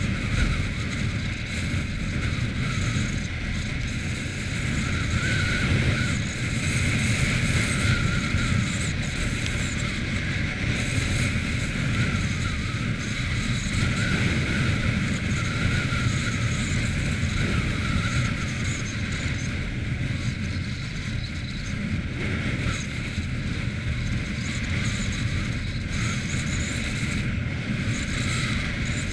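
Quad bike engine running steadily as it is ridden, with wind noise on the microphone; the sound swells a little now and then.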